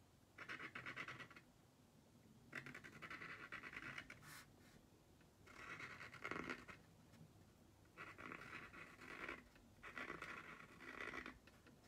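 Faint scratching of a paint-pen tip drawn across a painted globe's surface in five separate strokes of one to two seconds each.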